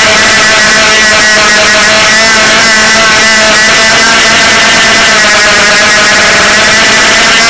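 The brushless motors and propellers of a 250 mm FPV quadcopter whine loudly and without a break, their pitch wavering up and down as the throttle changes.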